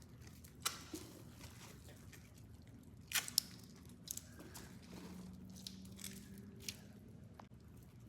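Foam squishy toys being squeezed and stirred in soapy water: a handful of faint, separate wet squelches and drips.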